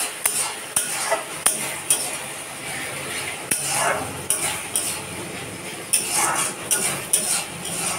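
Long metal spatula scraping and clicking against a metal kadai at irregular intervals, stirring onion-and-spice masala as it fries down, with a faint sizzle underneath.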